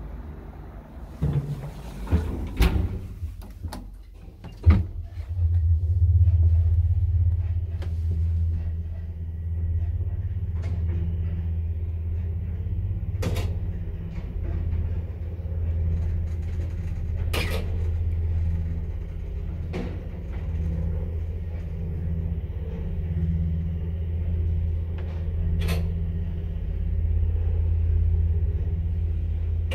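A 1979 ZREMB two-speed traction elevator car setting off and riding upward. A few clicks and knocks in the first seconds, then from about five seconds in a steady low rumble of the car in motion, with a sharp click now and then as it passes floors.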